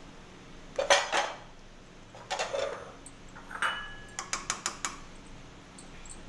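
A spoon stirring a watery pea-and-paneer curry in a kadai, scraping and knocking against the pan in several bursts, with a run of quick taps in the second half.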